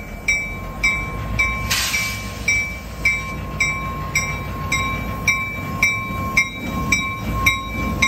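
A bell ringing steadily, a little under twice a second, over the low rumble of an idling Reading & Northern diesel locomotive. A short hiss comes about two seconds in.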